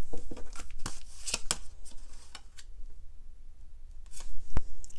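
A deck of tarot cards handled and shuffled by hand: a run of quick papery flicks and snaps over the first second and a half, then a louder burst of handling that ends in one sharp snap about four and a half seconds in, as a card comes out of the deck.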